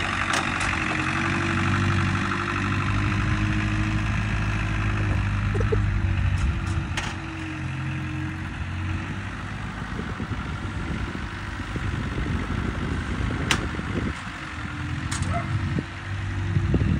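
Forklift engine running as the loaded forklift drives up, with a steady note for the first half that turns rougher later. A few sharp clicks or clanks come through now and then.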